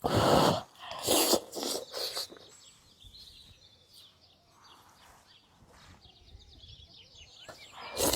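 Close-up eating sounds: loud bites and chewing in the first two seconds and again at the end. Birds chirp faintly in between.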